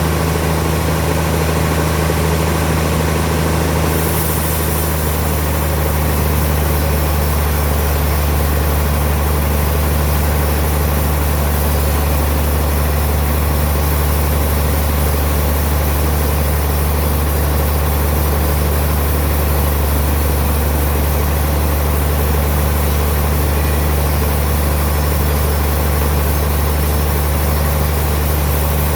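Sawmill running steadily while sawing a suar wood log, a deep constant machine hum under a hiss that gets brighter about four seconds in.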